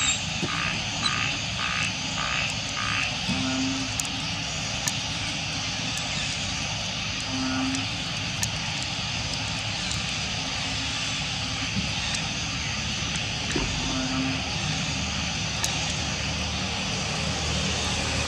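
Steady outdoor background drone, with a rhythmic pulsing chirp at about three a second in the first few seconds and a few faint clicks.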